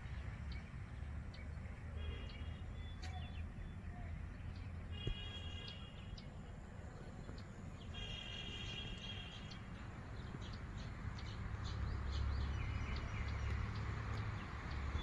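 Outdoor ambience: a bird calling in short bouts of chirps, three or four times, over a steady low rumble that grows a little louder in the second half, with scattered faint clicks.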